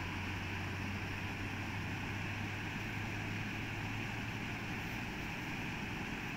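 Steady outdoor noise of wind on the microphone and moving water, with a low hum that fades out about four and a half seconds in.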